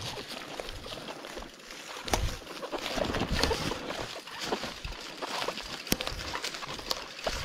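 A bicycle and rider moving through wet, trampled forest undergrowth: irregular squelches, rustling, crackles and sharp twig snaps, with a few low thumps.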